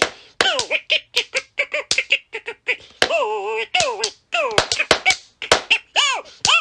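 Punch puppet's swazzle voice: a quick run of short, squeaky calls that swoop up and down in pitch, with sharp slaps of a wooden slapstick as Punch fights the crocodile.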